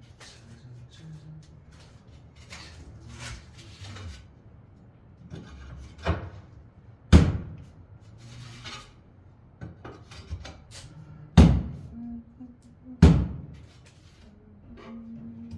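Four loud, sharp knocks at uneven gaps, with quieter clatter and scraping between them.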